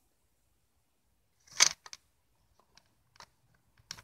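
Handling noise: a short, loud rustling scrape about one and a half seconds in, then a few faint clicks and taps.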